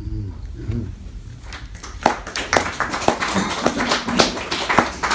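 Scattered applause from a small audience: a few people clapping, starting about a second and a half in and going on without a break.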